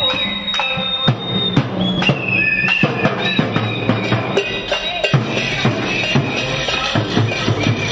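Drumming and rapid banging from a noise-making protest crowd, many sharp strikes over a low pulsing beat, with high steady tones held over it for a second or two at a time.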